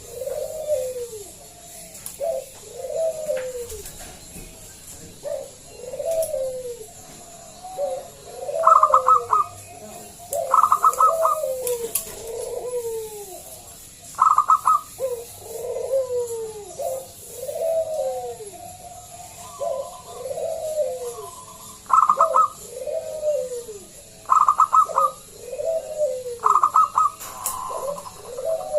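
Zebra dove (perkutut) cooing in a long steady series of short arched coos, about one every second or two, with quick stuttering higher notes breaking in every couple of seconds.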